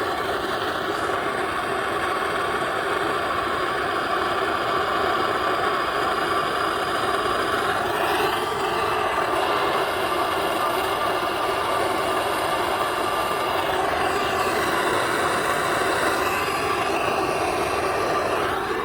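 Plumbing torch flame burning steadily, heating the copper joints of a tub/shower valve for soldering.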